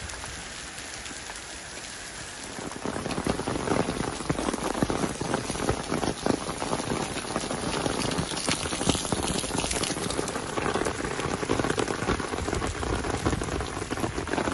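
Rain falling, a dense hiss of many small drop hits that grows louder about two and a half seconds in.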